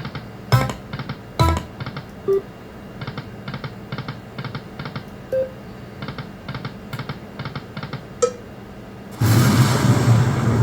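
Lightning Link video slot machine sound effects: a run of quick electronic ticks while the reels spin and stop, with a few short chimes. About nine seconds in, a much louder burst of game sound starts.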